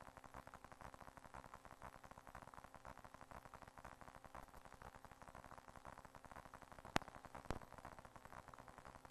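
Faint crackling hiss of a dashcam audio track. About seven seconds in come two sharp knocks about half a second apart, the first the louder.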